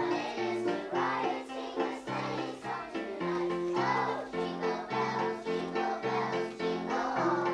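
Synthesizer playing back a song sequenced into it earlier: steady held notes under a melody, with children singing along.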